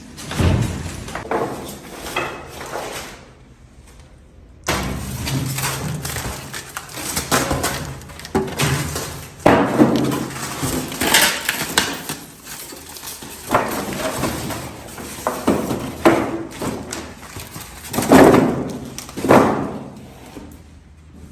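Packaging being handled and pulled off a new cooker: irregular knocks, scrapes and rustling, with a brief lull a few seconds in.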